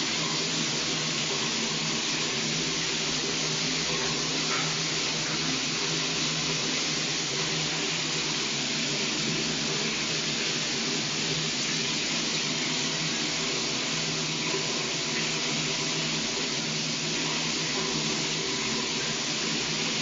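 Shower running steadily: water spraying from a shower head in an even, unchanging hiss, with a faint steady low hum beneath.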